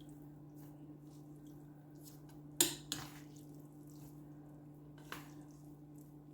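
Chopsticks tossing sauce-soaked noodles in a bowl: faint wet squishing, with a sharp clack of the chopsticks against the bowl about two and a half seconds in, a lighter one just after, and another near five seconds, over a steady low hum.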